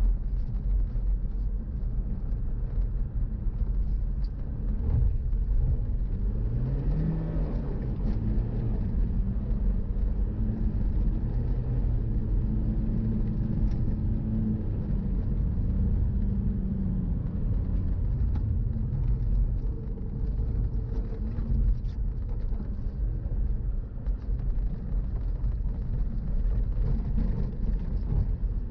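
Volkswagen Golf Mk4 engine running under way, its pitch climbing about six seconds in and rising and falling again midway, over a steady low rumble.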